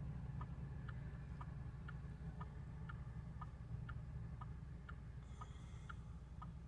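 A vehicle's indicator relay clicking in a steady tick-tock, about two clicks a second alternating between a lower and a higher click, over the low steady hum of the engine running.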